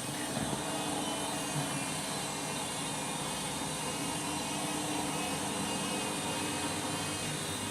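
Candy Grand'O Vita washing machine spinning its drum, a steady motor whine over an even rushing hum. The load is very sudsy, and the owner thinks it may go into a suds lock.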